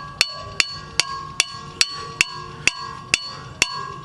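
Hammer blows on the car's metal wheel bolts, a steady beat of about two to three strikes a second, each leaving a metallic ring. He is knocking out lug bolts that he believes are stripped.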